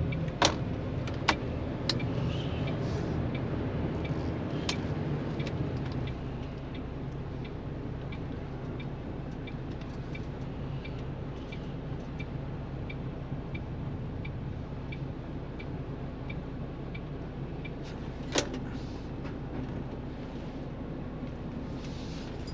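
Cab of a MAN truck with its diesel engine running as the truck is pulled over and parked. The drone drops to a quieter, steady idle about six seconds in. A few sharp clicks come in the first five seconds, a faint regular ticking runs about one and a half times a second, and there is one loud click past the middle.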